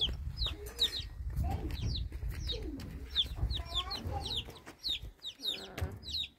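Chickens clucking and calling, with a steady run of short, high, falling chirps, about three a second.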